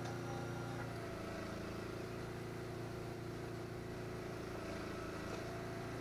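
A motor engine running steadily, a low drone with several held tones that shift slightly in pitch about a second in.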